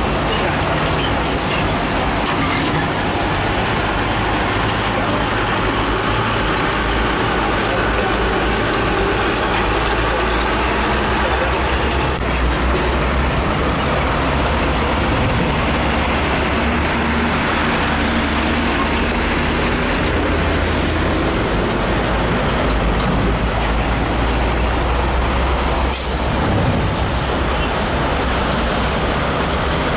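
Heavy Mitsubishi Fuso diesel trucks running and pulling past at close range, one after another, with a steady low engine rumble over road traffic. A short sharp air-brake hiss comes near the end.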